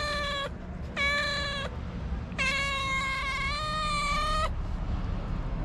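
Black-and-white tuxedo cat meowing, begging for food. The end of one call runs into the first half second, a short meow comes about a second in, and then a long drawn-out meow lasts about two seconds.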